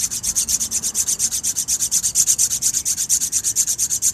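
Diamond-coated nail file rubbed quickly back and forth along the edge of a carbide lathe cutting bit, a fast, even scraping of many short strokes a second as the cutting edge is honed sharp.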